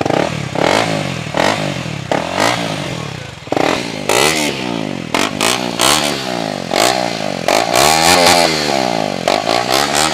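KTM Duke's single-cylinder engine run with its silencer removed, revved up and down in repeated quick blips through the open exhaust.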